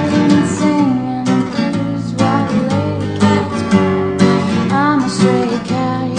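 Acoustic guitar playing an instrumental passage, chords strummed and notes plucked in a steady rhythm.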